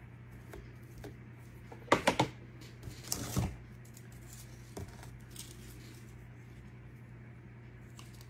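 Craft tools being put down and handled on a table: two sharp knocks about two seconds in, then a short rustle and a faint click, over a steady low hum.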